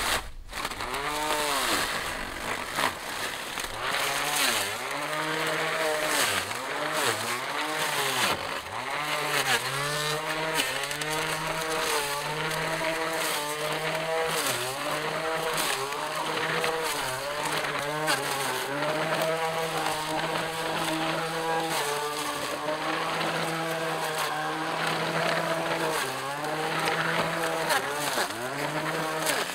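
Battery-powered string trimmer with metal cutting blades running under load in tall grass. Its electric motor whines steadily, and the pitch dips and recovers again and again as the motor bogs down in the higher growth.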